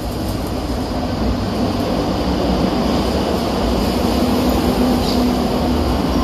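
Madrid Metro electric train running on the rails, a steady rumble that grows slightly louder, with a low steady hum coming in about four seconds in.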